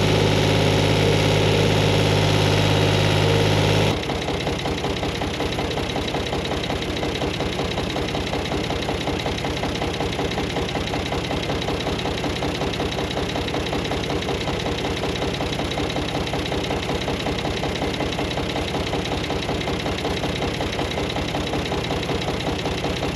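Tractor engine running steadily. About four seconds in the sound changes abruptly to a quieter, more rhythmic engine note.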